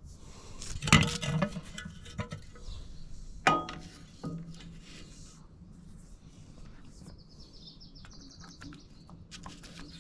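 Metal clutch parts and tools clanking and clinking as a clutch pressure plate and disc are fitted, with two sharp clanks that ring briefly, about a second in and three and a half seconds in, and a smaller knock after them.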